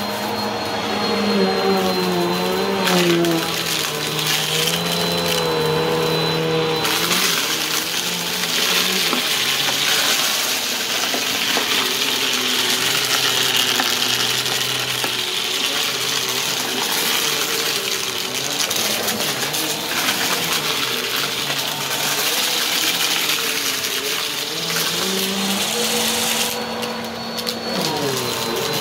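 Upright vacuum cleaner running over carpet and sucking up dry, crunchy debris. The bits click and rattle as they go up the nozzle, over the steady noise of the motor, whose pitch wavers up and down as it works.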